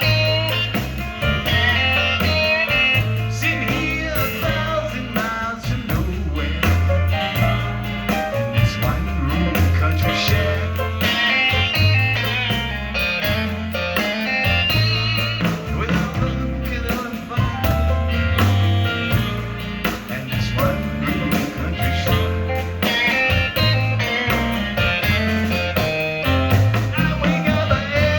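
Live blues band playing, with a stepping bass line under guitar.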